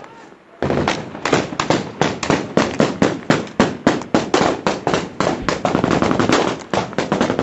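Heavy small-arms and machine-gun fire from several weapons at once. Dense, irregular overlapping shots come several a second, starting after a brief lull about half a second in.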